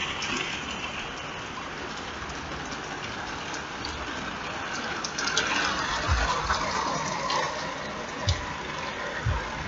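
Steady rain falling, with a few dull thumps in the second half.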